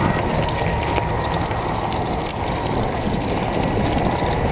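Mountain bike tyres rolling over a loose gravel path: a steady crackling crunch of small stones under the wheels.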